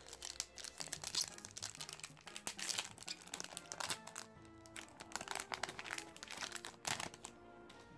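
A plastic booster-pack wrapper crinkling and tearing as it is pulled open by hand, in a run of sharp crackles that die down near the end. Quiet background music plays underneath.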